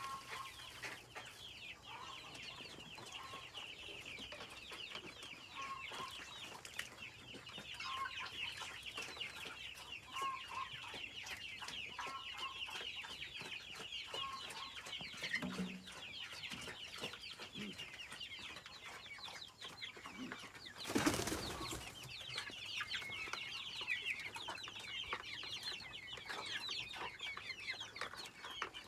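A flock of chickens calling without a break, many short high-pitched calls overlapping. About 21 seconds in there is one brief, louder rustling knock.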